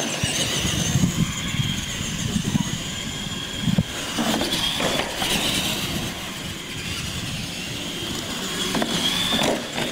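Radio-controlled monster trucks running on a concrete floor: a high whine from their electric motors and gearing that shifts slightly in pitch as they speed up and slow, over the rumble of big tyres on concrete.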